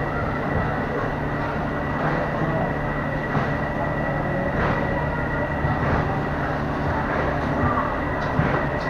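Steady motor rumble with a constant high whine, and faint scattered clicks.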